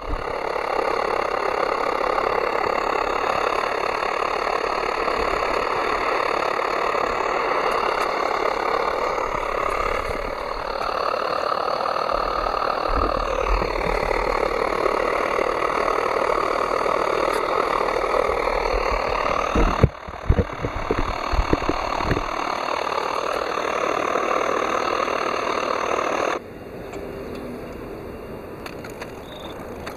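FUKI FK310 pressure stove burner running with a steady roar under a pot, with a few sharp knocks about two-thirds of the way through. Near the end the roar cuts off suddenly as the flame is shut off.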